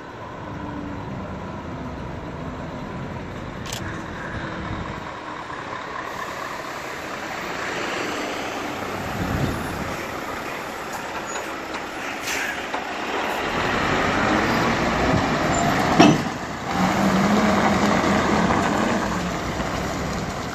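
Scania R730's V8 diesel engine pulling a heavy low-loader, growing louder as the truck comes up and passes, with road and trailer noise. A single short, sharp burst of sound comes about three-quarters of the way through, the loudest moment.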